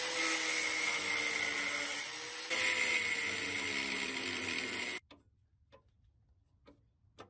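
Electric angle grinder running against the steel body metal of a car's inner fender, grinding off an old welded-on bracket: a steady motor whine under a rasping hiss of disc on steel. It cuts off abruptly about five seconds in, followed by a few faint clicks.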